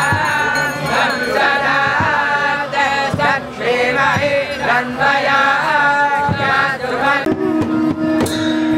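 Devotional chanting and singing with drum beats. Near the end the sound changes to a steady held low note, like a brass horn being blown.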